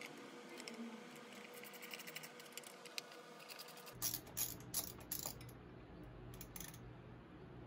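Light metallic clicking and rattling of tools and small parts, then several sharp metal clinks and knocks about four seconds in as the chrome S&S air cleaner cover is handled and seated over the carburetor.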